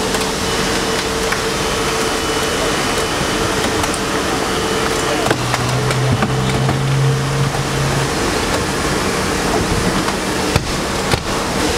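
Steady loud machine noise: a low engine-like hum under a wide hiss, with a few sharp knocks near the end.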